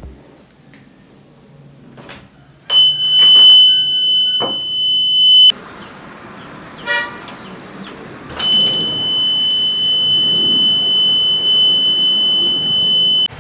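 A 3V buzzer in a homemade battery door alarm sounding a steady high-pitched tone twice: for about three seconds, then after a pause for about five seconds, cutting off suddenly each time. Clicks and handling noises come in the pause between.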